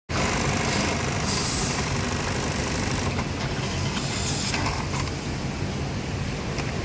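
Industrial sewing machines running, a steady mechanical drone with a low hum, with two short hissing bursts about a second and four seconds in.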